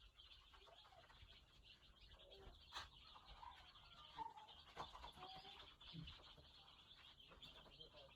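Faint, continuous massed peeping of a brood of day-old broiler chicks, with a few lower sliding calls and a single click about three seconds in.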